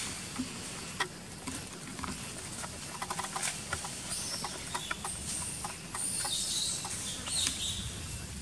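Scattered light clicks and crackles, like leaves and twigs rustling in dry forest leaf litter, thickest a few seconds in, with a short hissing rustle near the end.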